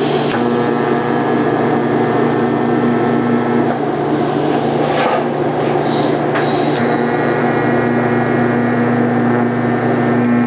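TIG welding arc running steadily in two welds, about three and a half and four and a half seconds long, each struck with a sharp crackle, over a steady low hum.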